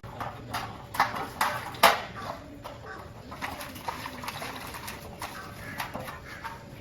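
Clatter of hard objects: four sharp clinks and knocks in the first two seconds, then lighter scattered clicks, like dishes and utensils being handled at a food stall.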